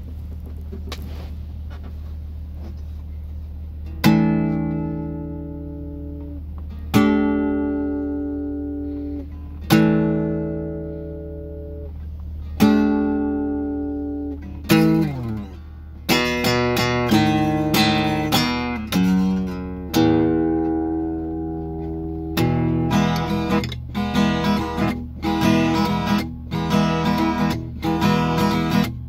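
Cutaway acoustic guitar played over the steady low rumble of a moving train. For the first four seconds only the rumble is heard. Then four single strummed chords come about three seconds apart, each left to ring out, followed by quicker picked and strummed playing.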